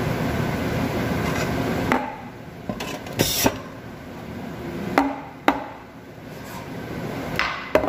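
Espresso machine's steady running noise stops about two seconds in. Then comes a short hiss and several sharp knocks of steel milk pitchers, a portafilter and a ceramic cup being handled on the machine and its drip tray.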